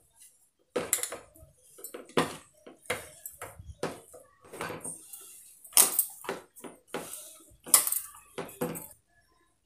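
Stainless steel bowl knocking and scraping as wet ragi flour dough is mixed by hand in it: a string of irregular clatters, the loudest about six and eight seconds in.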